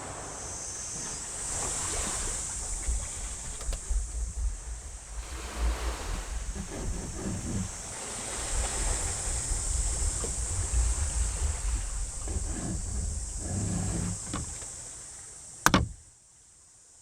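Sea surf washing onto a beach in slow surges, with wind rumbling on the microphone. A sharp click near the end, after which the surf sound cuts off.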